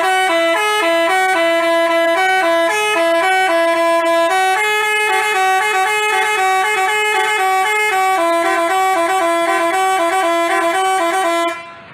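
Telolet Basuri musical bus horn playing a tune as a quick chain of stepped notes. It stops abruptly shortly before the end.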